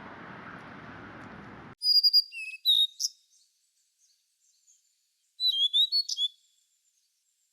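A steady hiss cuts off suddenly a little under two seconds in. Then a songbird sings two short phrases of quick high chirps and whistled notes, about two seconds apart.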